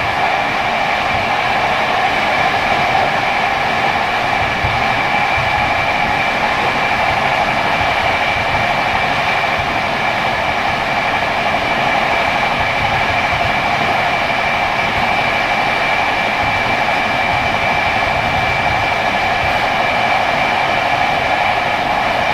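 PKP TLK passenger train running along the track: a steady rolling noise with a constant high whine held throughout.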